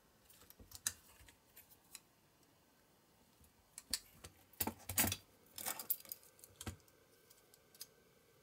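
Light clicks and taps of needle-nose pliers and a small sheet-metal part being handled: a few in the first two seconds, then a busier run of clicks from about four to seven seconds in.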